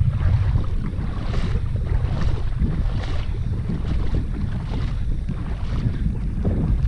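Strong wind buffeting the microphone: a constant loud low rumble with faint gusty swishes on top.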